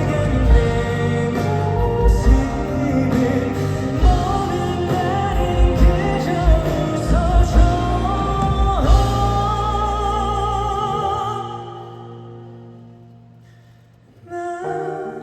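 Live pop ballad band music with steady drum hits and a long, wavering held note over it. The band fades out about eleven seconds in, and soft sustained chords start again near the end.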